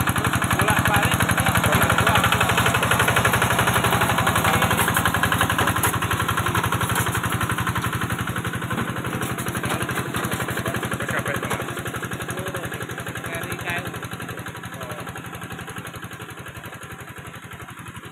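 Engine of a farm machine running steadily as it works through a muddy rice paddy, its even chugging growing gradually fainter through the second half.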